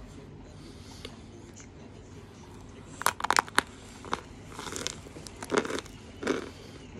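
Biting into a block of chalk: a quick run of sharp crunches about three seconds in, then a few more crunches and chewing.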